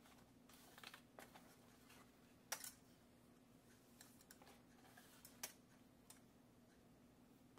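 Faint scattered clicks and taps of an antique folding bellows camera being handled, its metal struts and latches clicking, with the sharpest click about two and a half seconds in. A faint low hum runs underneath.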